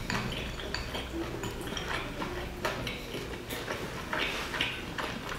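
Chewing and wet mouth sounds of someone eating a soft boiled dumpling, with a string of small clicks as chopsticks tap against a glass sauce bowl.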